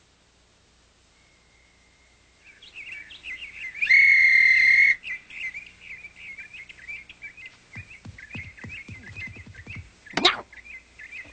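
Cartoon soundtrack of quick bird-like chirping and warbling, broken about four seconds in by a loud, steady whistle lasting about a second. Later comes a run of low falling sounds and a quick up-and-down swoop near the end.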